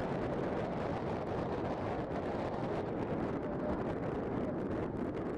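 Jet engines of a Boeing 737 airliner on short final in a strong crosswind, a steady broad rush, with wind buffeting the microphone.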